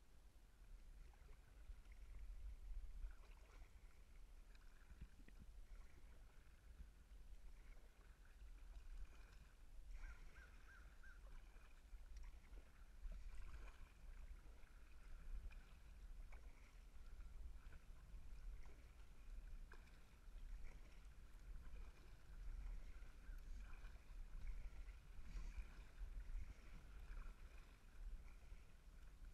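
Faint, muffled low rumble of lake water against a plastic kayak's hull, heard through a GoPro's sealed waterproof housing.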